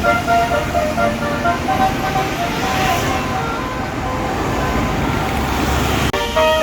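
Bus basuri (telolet) air horn playing a melody of short stepped notes, fading under the noise of the bus engine and traffic about two and a half seconds in. The melody starts again after a sudden break near the end.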